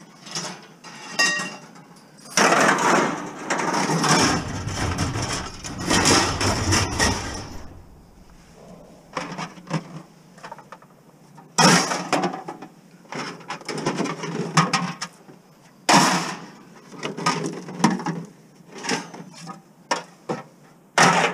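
Plastic milk jugs, bottles and scrap being shifted and pulled out of a packed car's cargo area: plastic rustling and clattering, a long rustling stretch in the first third, then scattered knocks with several sharp loud ones.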